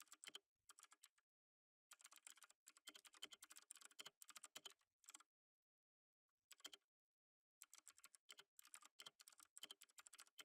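Faint typing on a computer keyboard: quick runs of key clicks in bursts, with a pause of under a second about a second in and a longer pause around the middle, broken by a brief flurry.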